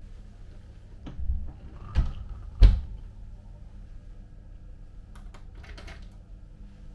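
Room door with a metal lever handle being handled and shut: a few thumps about a second in, the loudest near three seconds, then a short run of light metallic clicks from the door hardware a little after five seconds.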